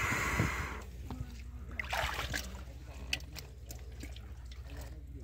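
Muddy water splashing and sloshing in a small flooded hole in the mud as hands dig and grope in it: a splash right at the start and another about two seconds in, with small wet clicks between.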